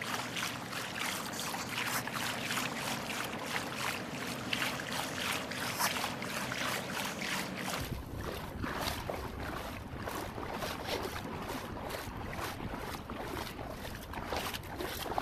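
Choppy seawater splashing and slapping against a kayak hull in a continuous, irregular patter. From about eight seconds in, wind buffets the microphone with a low rumble under the splashing.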